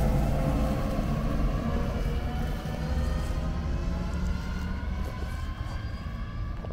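Tractor pulling a loaded forage wagon drives away, its diesel engine running under load with the rumble of the wagon's wheels, fading steadily as it recedes.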